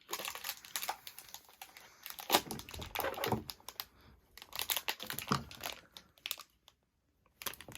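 Crinkling and tearing of a surprise-toy package's wrapping as it is opened by hand, an irregular crackle that stops about six seconds in.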